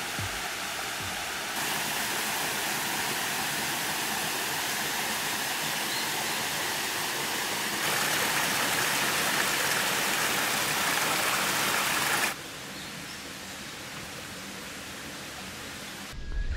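Small mountain waterfall pouring into a rock plunge pool: a steady rush of falling water. Its level steps up about 8 s in and drops sharply, quieter, about 12 s in.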